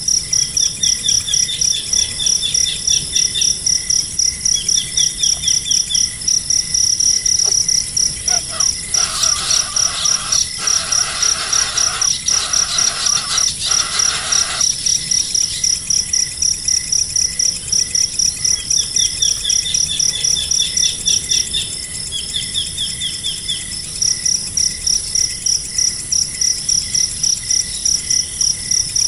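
Insects chirping in a steady, fast high pulse that drops out briefly about two-thirds of the way through. Over it are short trills and, from about nine to fifteen seconds in, a louder run of lower calls.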